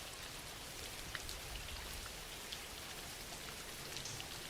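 Steady soft rain falling, an even hiss with scattered light drop ticks.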